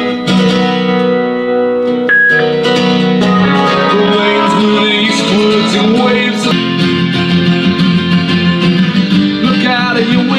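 A guitar rock song playing through the small Archeer A226 Bluetooth speaker, strummed guitar over sustained chords.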